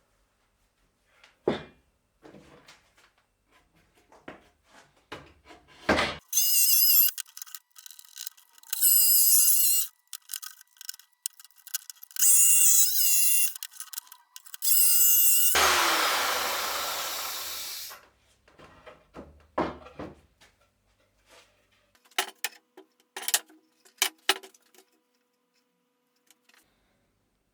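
Power tools working on plywood, running in several short bursts with a high whine, then one longer run that dies away, with knocks and handling clatter between them.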